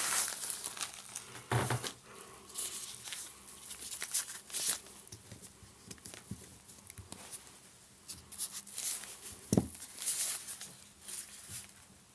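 Smartphone packaging being handled and unwrapped: scattered crinkling and rustling, with a soft knock about a second and a half in and another about ten seconds in.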